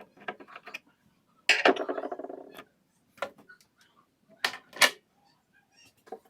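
Clicks and knocks of cabinet-door hinge hardware being worked on. About a second and a half in comes a loud rattling buzz lasting about a second, and a little later two sharp clicks in quick succession.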